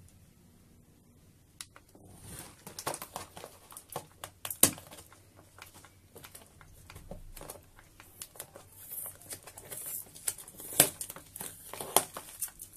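Hands handling and prying open a cardboard toy train set box with a clear plastic window: a dense run of crinkling, scraping and tapping that starts about two seconds in, with a few sharper knocks of the box.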